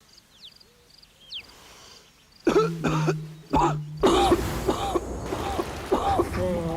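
A man coughing and clearing his throat again and again. The fit starts about two and a half seconds in, after a quiet stretch with a few faint high chirps, and goes on at roughly two coughs a second.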